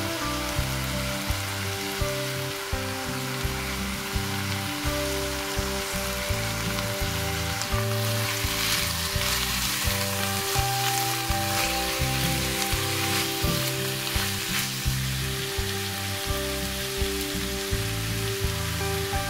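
Diced chicken, onions and mushrooms sizzling in a frying pan, under background music. About eight seconds in, a wooden spatula stirs the pan for several seconds, making the sizzle louder and scratchier.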